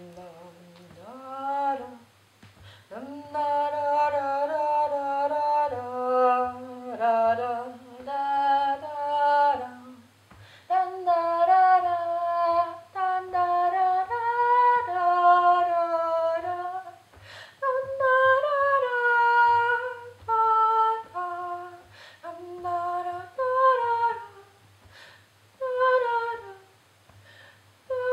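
A woman humming a wordless melody unaccompanied, in long held notes that slide up and down, with short breaks between phrases. A faint steady low hum runs underneath.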